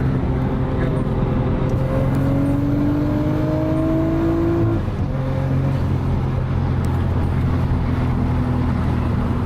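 Turbocharged Nissan RB25 straight-six accelerating hard under load. The engine note climbs for about five seconds, drops suddenly, then climbs again more slowly. It is pulling on new coil packs and spark plugs that have cured its misfire under boost.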